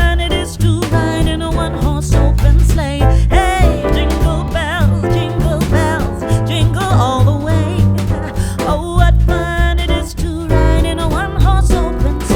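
Background song with a sung vocal over a steady beat and bass line.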